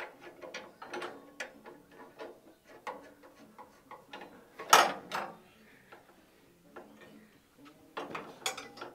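Irregular metal clicks and clunks of bolts and a hand tool as a stainless steel bracket is held up and bolted in under a ute's tub, with one louder clunk about halfway.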